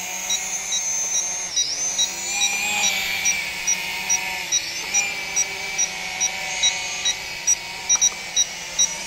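Snaptain SP650 quadcopter's motors and propellers whirring with a wavering whine as it hovers and descends to land. Over it, short high beeps repeat evenly about two and a half times a second, taken by the pilot to be the low-battery warning.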